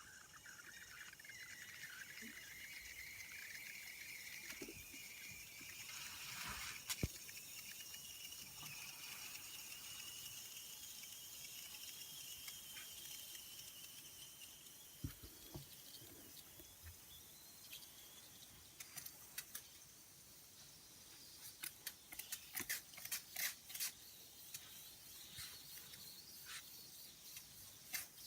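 Saito Hero's-ball steam engine running: steam hissing from the jets, with a faint whistling tone that rises in pitch over the first several seconds and then holds steady. In the second half comes a scatter of sharp clicks and crackles.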